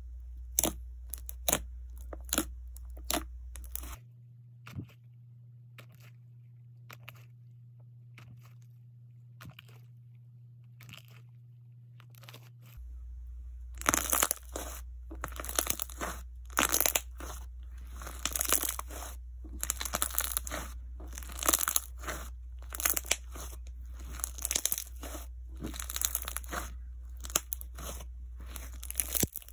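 Clear jiggly slime being squished, pinched and squeezed by hand, giving dense crackling and popping clicks. After about four seconds it goes quiet for several seconds, with only a low hum and a few faint clicks, then loud clusters of clicks return about fourteen seconds in as the slime is squeezed between both hands.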